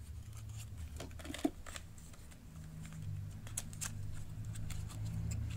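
Hands handling small cosmetic packages over an open cardboard box: scattered light clicks and rustles, the sharpest about a second and a half in, over a low steady hum.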